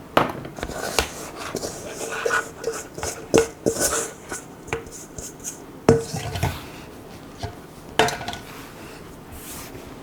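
A utensil knocking and scraping against a mixing bowl while a stiff dough is worked together: irregular clinks and thuds, some with a short ringing tone from the bowl.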